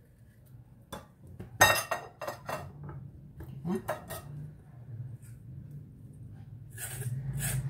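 Clinks and knocks of a metal kitchen tool and zucchini against ceramic and plastic bowls, the loudest about a second and a half in. Near the end comes a run of quick, evenly spaced scraping strokes, about three a second, as a zucchini striper cuts grooves along the skin.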